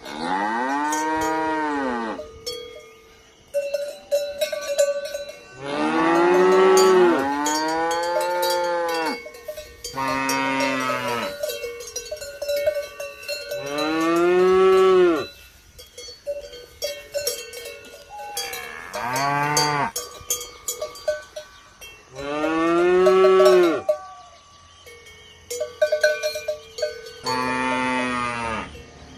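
Cattle mooing, with about seven long moos over the stretch, each rising and then falling in pitch. Cowbells clank in the pauses between the moos.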